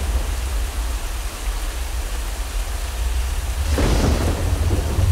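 Thunderstorm sound effect: steady rain with a low rumble of thunder, and a louder peal of thunder breaking in a little past halfway.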